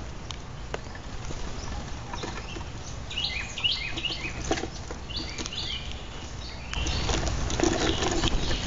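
Grackles at a seed feeder: runs of short, descending chirping calls, with scattered sharp taps of beaks and feet on the wooden tray. From about seven seconds in it gets louder with a rustle of wings as more birds land.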